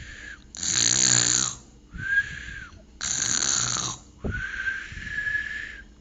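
A lion's snoring imitated with a human voice in cartoon style: twice, a rasping snore on the in-breath followed by a long whistling out-breath held on one steady high note.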